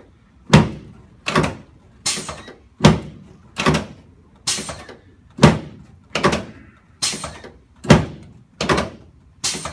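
Chiropractic adjusting table thumping in a steady series of about a dozen sharp knocks, a little under a second apart, as the sacrum is adjusted down its center.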